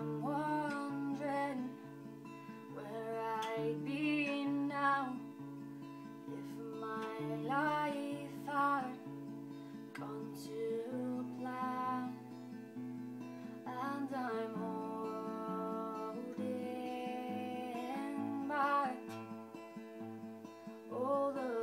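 A woman singing a slow song to her own acoustic guitar: a steady pattern of picked low notes runs underneath while her sung phrases rise and fall over it, with short gaps between lines.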